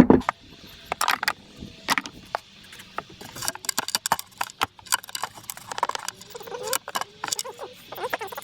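Old hand tools and wooden tool boxes being handled: a heavy thump at the start, then irregular metal-and-wood clinks and knocks as tools are moved about and rummaged through.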